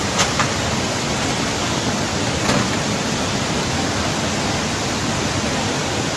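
Floodwater rushing through a street as a fast, muddy torrent, a steady even rush of water. A few brief clicks cut through it near the start and once about two and a half seconds in.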